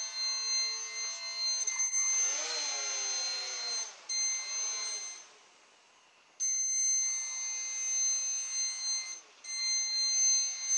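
Small brushed quadcopter motor spinning a two-blade air propeller on a model boat, run through a 2 kHz brushed speed controller: a steady high whine from the controller, with the motor's pitch rising and falling as the throttle is worked. A louder rush of the propeller comes about two seconds in, then the motor stops for about a second around five seconds in before starting again.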